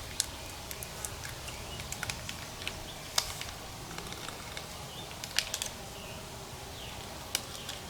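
Scattered light clicks and crinkles from handling a drink-mix packet and water bottle, over a steady outdoor background with faint bird chirps.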